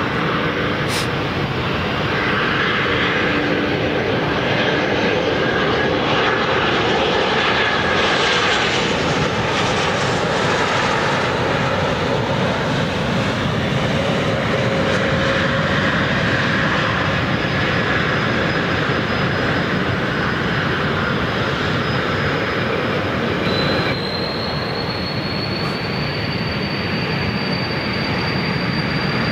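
Jet engine noise of a British Airways Embraer E190's twin turbofans as the airliner comes in to land and rolls out on the runway, a steady loud rushing. A thin high whine comes in about halfway through and steps up in pitch near the end.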